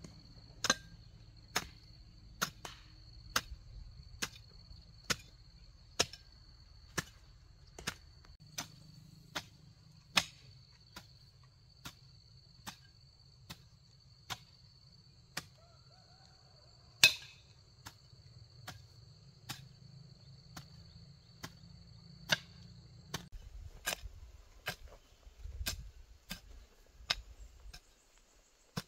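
A garden hoe chopping into soil in steady strokes, a little under one a second, each a short sharp knock. An insect's steady high-pitched buzz runs behind the strokes and cuts off about three quarters of the way through.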